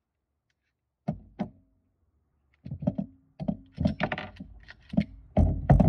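Muffled knocks and clatter of a phone being handled with its microphone covered. Two sharp knocks come about a second in, then a dense run of rubbing and knocking from about two and a half seconds on.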